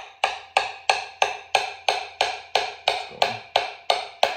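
Background music with a steady beat of sharp, evenly spaced knocks, about three a second, each ringing briefly.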